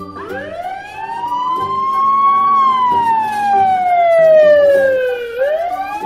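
Emergency vehicle siren wailing: it rises in pitch for about two and a half seconds, falls slowly, then starts rising again near the end. Background music plays underneath.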